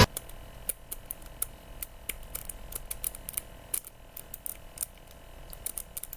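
Lock pick raking the pin stack of a five-pin FAI by Viro 555 padlock: light, irregular metallic clicks and scrapes, several a second. The raking does not open the lock.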